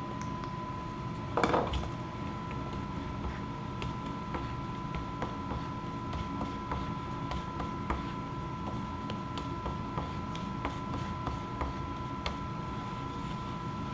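Small scrapes, taps and clicks of two-part epoxy being mixed with a plastic card, with a louder clatter about a second and a half in. A steady faint high hum runs underneath.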